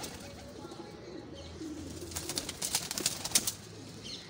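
Domestic pigeons cooing in a loft, with a run of wing flaps and scuffling clicks about two to three and a half seconds in as the birds move in the cage.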